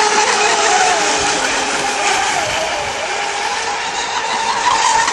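Radio-controlled Mono1 racing model boats running at speed, their motors giving a high steady whine with other pitches sliding up and down as the boats race past, over a constant hiss.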